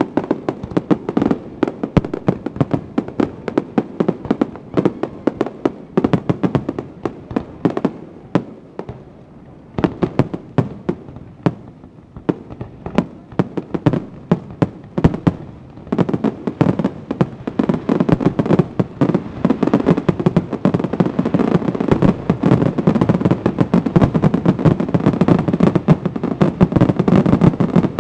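Aerial fireworks shells bursting overhead in a rapid, continuous string of bangs and crackles, with a short lull about halfway through and a denser, louder barrage through the second half.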